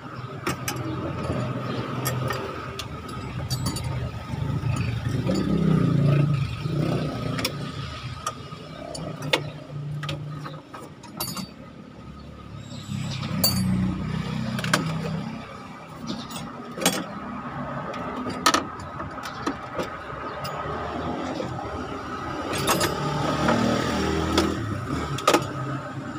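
Hand tools working under a car dashboard: a T-handle wrench undoing fasteners and metal tools clinking, then the plastic blower-motor and evaporator housing being shifted and handled, giving scattered sharp clicks and knocks over low, uneven rumbling handling noise.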